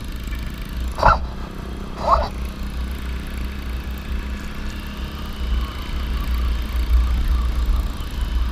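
Motorcycle riding along at a steady speed, its engine running under a low wind rumble on the microphone. Two brief louder sounds come about one and two seconds in.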